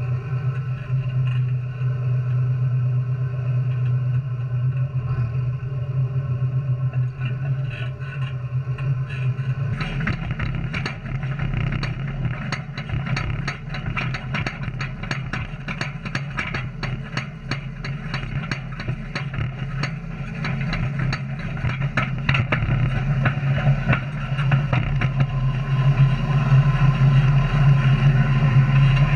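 John Deere 8330 tractor running steadily under load, a low even engine hum. Through the middle of the stretch a dense, rapid crackling of sharp ticks runs over the hum, then dies away near the end as the engine sound grows a little louder.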